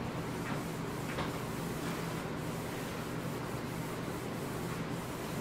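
Cloth rubbing along the metal rails of an AeroPilates reformer, working oil into them: a soft, steady rubbing with no sharp knocks.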